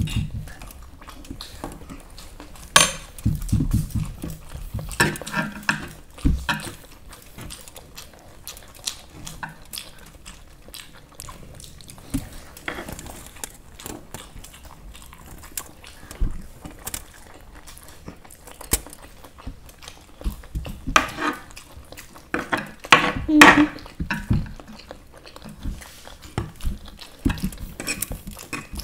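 Eating masala Maggi noodles: spoons and forks clink and scrape against plates in scattered short clicks, with chewing. There are two busier, louder spells, a few seconds in and again past the middle.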